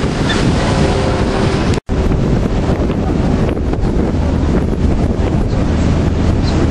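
Strong wind buffeting a phone microphone on a moving boat, over the rush of water and a low steady drone. The sound cuts out completely for an instant about two seconds in.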